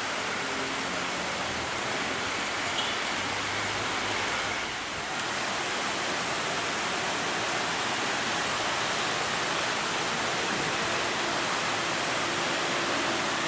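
Steady rushing roar of a train passing close at speed, wheels on rail and air rush with no pauses between.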